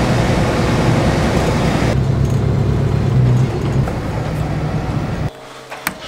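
Truck engine running, with tyre and cab noise, heard from inside the cab while driving: a steady low hum under a noisy drone. It cuts off abruptly about five seconds in, followed by a single click.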